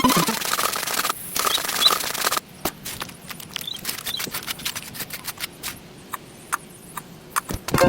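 Scraping for about two seconds, then a scattered run of light clicks and taps from small materials being handled in miniature construction work.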